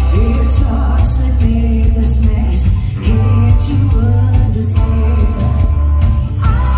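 Live rock band playing: a woman singing over electric guitars, bass guitar and drums, with strong bass and a drum backbeat about once a second.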